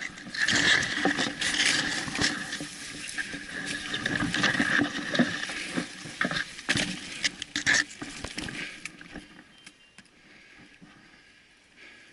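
Dry leaves, twigs and brush rustling and crackling close to the microphone, with many sharp snaps, as someone pushes through dense undergrowth. It eases off near the end.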